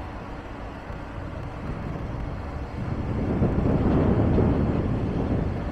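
A train rumbling past, the noise swelling to a peak about four seconds in and then easing off.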